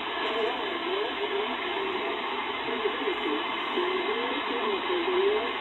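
Shortwave upper-sideband voice transmission from the RAF weather station on 5450 kHz, played through the speaker of a Chinese clone of the Malachite DSP SDR receiver. A voice is heard in steady hiss, with a thin, narrow-band sideband sound.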